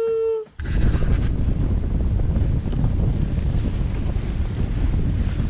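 A voice holding a sung note cuts off about half a second in. Then wind buffets the microphone aboard a sailing yacht under way, a steady low rumble with the wash of waves against the hull.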